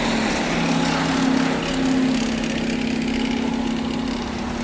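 A large truck's engine running steadily at an even low pitch.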